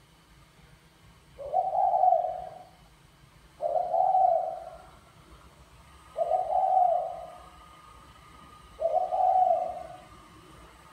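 Spotted dove cooing: four coo phrases, each a little over a second long, coming about every two and a half seconds.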